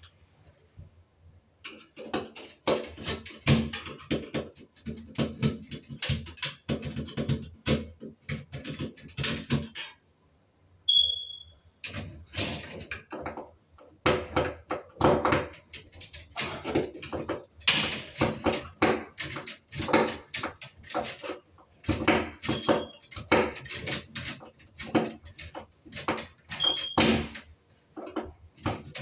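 Irregular clicking, tapping and rattling of wires and a hand tool being worked inside a sheet-metal fluorescent light fixture on the ceiling, with a few brief high squeaks. There are short pauses about a second in and about ten seconds in.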